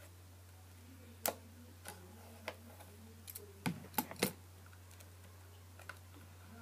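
Scissors snipping at the plastic wrap of a Blu-ray steelbook case, with the case being handled: scattered light clicks, a cluster of louder ones about four seconds in, over a faint steady low hum.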